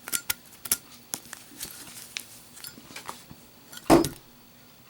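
A Zippo lighter dropped in a drop test: a run of small metallic clicks, then one loud impact about four seconds in as the lighter hits the surface.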